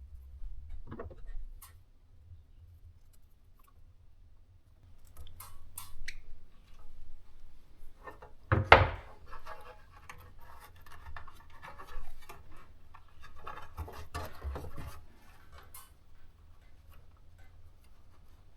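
Handling noises: irregular rubbing, scraping and small clicks, with one sharp knock about nine seconds in.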